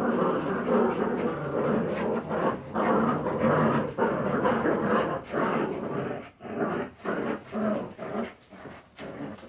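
Several Jagdterrier puppies growling as they tug and tussle together over a cloth. The growling runs almost without pause, then breaks up into shorter growls over the last few seconds.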